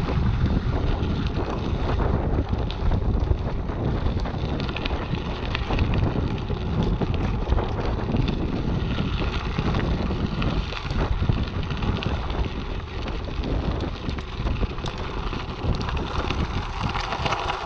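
Wind buffeting the microphone while a tandem mountain bike rolls fast over a gravel track, tyres crunching on the stones, with many small clicks and rattles from the bike.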